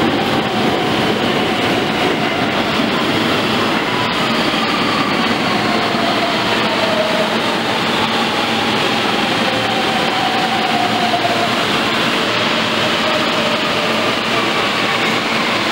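Subway train pulling in and braking to a stop: a steady rumble of wheels on rail, with its motor whine falling in pitch as it slows.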